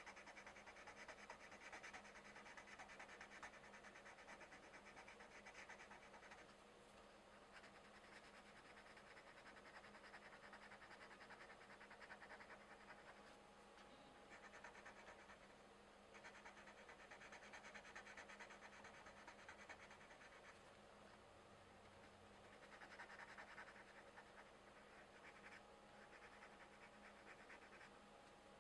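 Coloured pencil shading on paper: a faint scratching that runs in stretches of several seconds with short pauses between.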